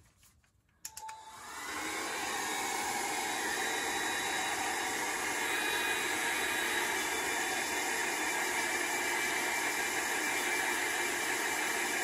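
Revlon hair dryer brush with its brush head taken off, used as a blower: switched on with a click about a second in, it rises to a steady rushing blow that holds.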